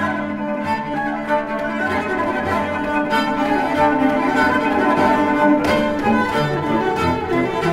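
Background music led by bowed strings, with cello and violins playing sustained notes over a steady pulse.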